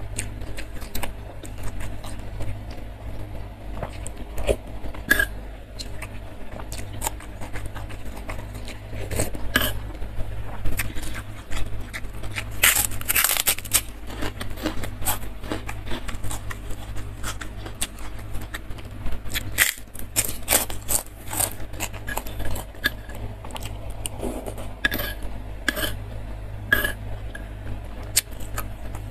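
Close-miked eating: a metal spoon clinking and scraping against a stone mortar, with wet chewing and lip smacks of fried tofu in spicy sauce. A burst of crisp crunching comes about halfway through as a puffed kerupuk cracker is bitten, with smaller crunches near the end. A low steady hum runs underneath.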